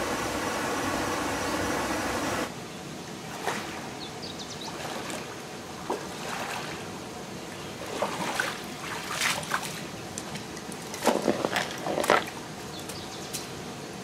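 A steady rushing noise that cuts off abruptly after about two and a half seconds, then a person wading through a shallow stream: irregular splashes and sloshes of water around the legs, loudest in a close cluster late on.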